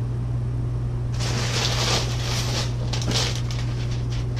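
Packaging rustling and crinkling as hands dig through a cardboard shipping box, for about two seconds starting about a second in, over a steady low hum.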